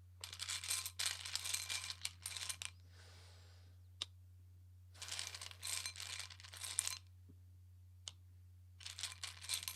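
Tarot cards being shuffled by hand in three bursts of rapid papery flicking and slapping, with a couple of single sharp clicks between them, over a steady low hum.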